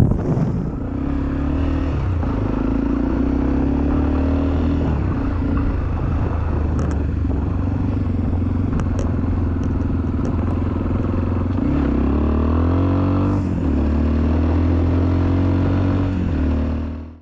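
Motorcycle engine running steadily under way, with the crunch and clatter of tyres on a gravel road. About twelve seconds in, the engine note dips and then climbs again. The sound cuts off suddenly at the end.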